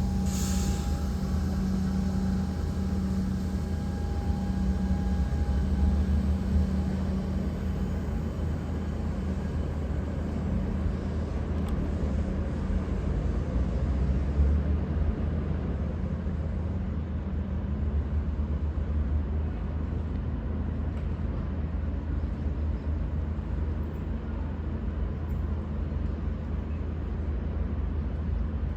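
V/Line VLocity diesel multiple unit running, a steady low diesel rumble, with a brief hiss about half a second in.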